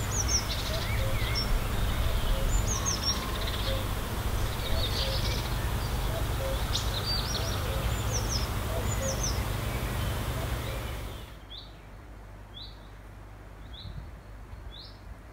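Small birds singing and chirping in a garden over a low steady rumble. About two-thirds of the way through, the rumble falls away, leaving a bird repeating a short rising chirp about once a second.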